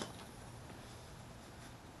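Quiet room tone with one faint tick a little before the end.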